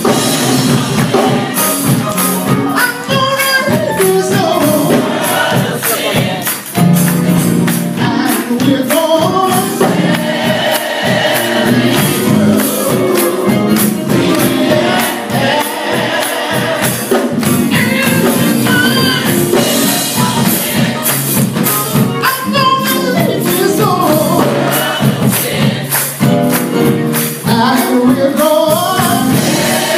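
Gospel music: a choir singing with a tambourine keeping a steady rhythm.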